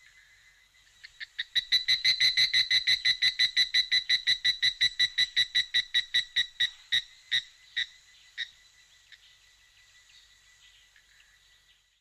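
A rapid pulsing trill, like a frog or insect call, at about six pulses a second. It starts about a second in, then slows and fades out after several seconds.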